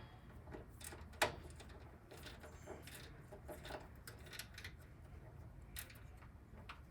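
Faint, scattered clicks and small scrapes of a Phillips screwdriver turning screws into the metal chassis of a Power Mac G4, fastening the power supply, with a sharper click about a second in.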